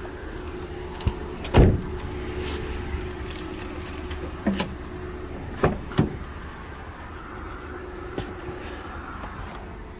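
Car engine idling with a steady low hum. Several sharp knocks sound over it, the loudest about one and a half seconds in.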